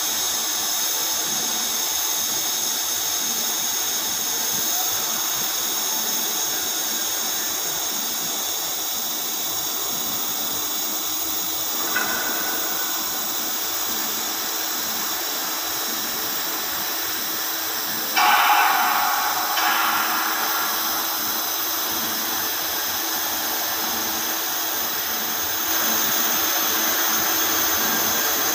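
TIG welding arc on carbon steel pipe, a steady hiss with a faint high-pitched whine. A sharp click comes about twelve seconds in, and a louder burst of noise lasting under two seconds about eighteen seconds in.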